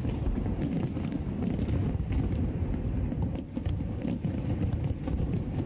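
Fireworks going off: a continuous low booming rumble with scattered sharp bangs and crackles.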